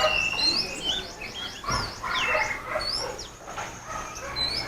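Many small aviary birds chirping and whistling at once: short notes sliding up and down and overlapping, with a brief thump about two seconds in.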